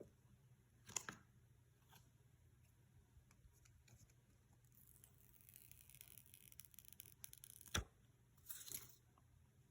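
Faint handling sounds of a phone box and its packaging being opened: a tap about a second in, a few seconds of soft rustling and tearing in the middle, then a sharp knock followed by a brief rustle near the end.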